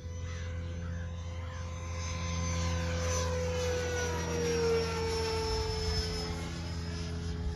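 Freewing F5 Tiger RC electric ducted-fan jet with a 12-blade fan flying past. It gives a multi-tone whine that rises in loudness and drops in pitch as it passes, loudest about two-thirds of the way through. The whine sounds sickly, like a hairdryer, which the owner puts down to the 12-blade fan not suiting the motor's KV.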